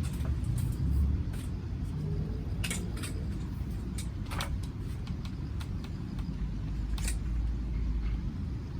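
Steady low rumble with a few scattered light clicks and clinks, the loudest about seven seconds in.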